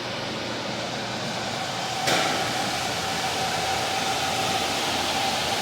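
Steady rush of air, with a louder hiss and a steady whistling tone starting suddenly about two seconds in.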